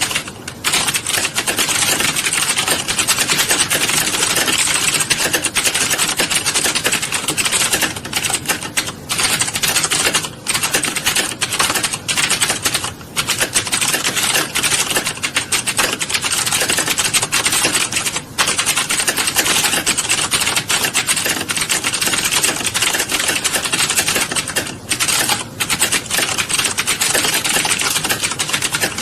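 Fast, continuous typing on a computer keyboard: a dense run of key clicks with a few brief pauses.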